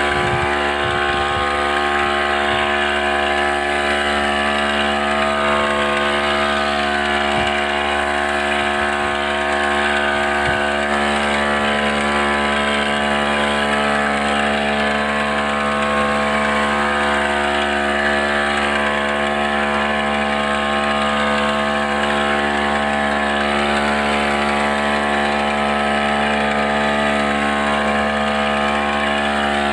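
Small gasoline engine of a motorized backpack power sprayer running at a steady speed while spraying.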